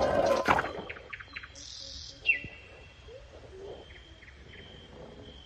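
A die-cast toy monster truck clattering and rattling down a plastic slide in a short loud burst at the start. Birds then chirp in the background, with a falling whistle about two seconds in and a thin high note that holds on.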